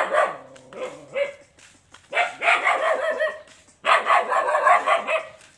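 Dog barking in four bursts, the last two each longer than a second.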